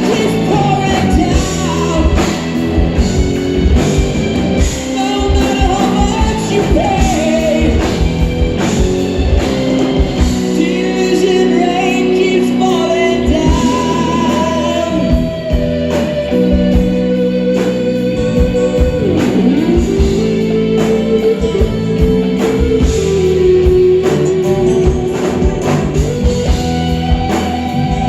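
Live progressive rock band playing: sustained chords and a lead melody that bends in pitch, over steady drums.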